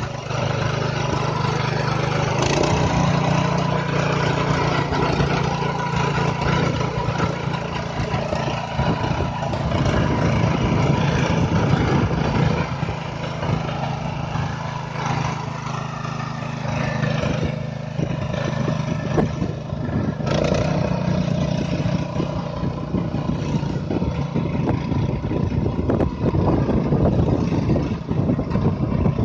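Small petrol engine of a walk-behind power weeder running steadily while its rotary tines churn grassy soil; the engine note rises about two and a half seconds in and then holds.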